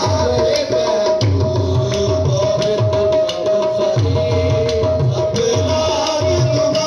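Qawwali music with no singing: a tabla beat under one long held note, with sharp handclaps.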